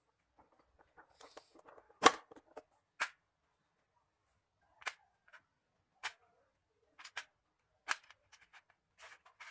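Handling noise: hands moving small objects, with AA batteries and hard plastic knocking on a tabletop and against each other. It comes as a series of separate sharp clicks and knocks, the loudest about two seconds in.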